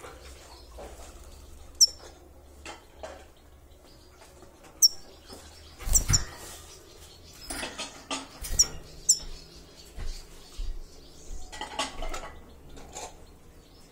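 Grey-headed goldfinch giving single short, high call notes that fall in pitch, every few seconds. Between the calls come light rattles and knocks of the wire cage, with one heavier thump about six seconds in.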